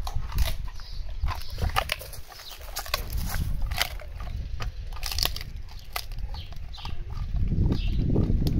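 Bull terrier crunching a dried beef trachea chew: irregular sharp cracks as the hard cartilage rings break between its teeth. A low rustling rumble grows louder near the end.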